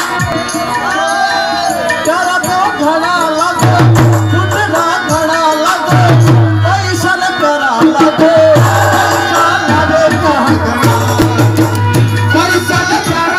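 Live Rajasthani Langa folk music: a male singer's voice with wavering, ornamented melodic runs, over harmonium and dholak hand-drum strokes. Low held notes of about a second recur every couple of seconds from a few seconds in.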